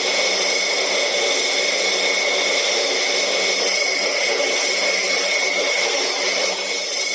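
Aircraft engine running steadily: a constant loud rush with a high whine on top, dipping slightly near the end.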